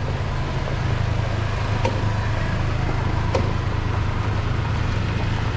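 Side-by-side UTVs driving slowly past on a dirt street, their engines running with a steady low drone. Two short sharp clicks come about two and three and a half seconds in.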